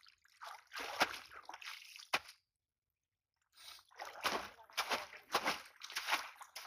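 Shallow muddy water sloshing and splashing as a wire fish trap is worked back and forth in it, in repeated strokes of about one and a half a second. A second of silence breaks the splashing partway through.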